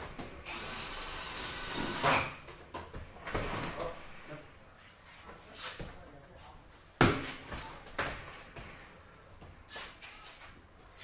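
Knocks and bangs from a glazed double door being handled and fitted into its frame, with a steady rush of noise for about a second and a half near the start and the loudest bang about seven seconds in.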